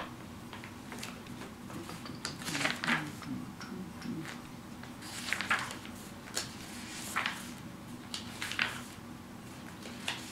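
Paper book pages being leafed through: several short papery rustles a couple of seconds apart.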